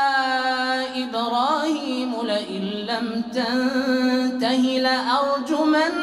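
A man's voice chanting Quranic recitation in a melodic tajweed style: a long held note for about the first second, then a run of ornamented turns in pitch across several drawn-out phrases.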